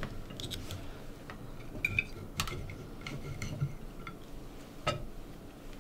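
Knives and forks clicking against plates as people eat: a scatter of light, irregular clicks.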